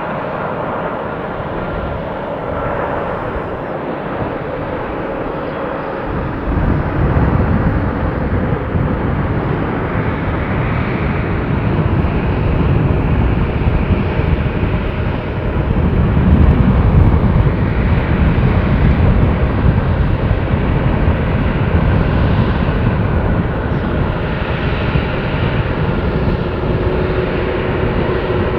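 Jet engines of a four-engined Boeing 747-400 airliner, a loud continuous rumble that grows markedly louder about six seconds in and swells again around the middle.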